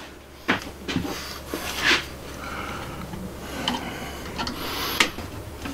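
Hand-work on a brass gas-line fitting and its hose in a plywood cabinet: scattered light clicks, knocks and a brief scrape of tool and metal, over a steady low hum.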